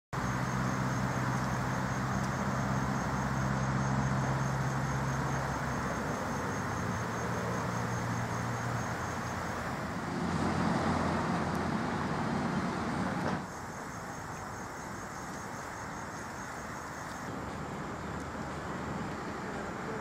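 Outdoor road traffic noise with insects chirping at about four chirps a second; a low steady engine hum fades out after several seconds, the traffic swells about ten seconds in, then the sound drops suddenly.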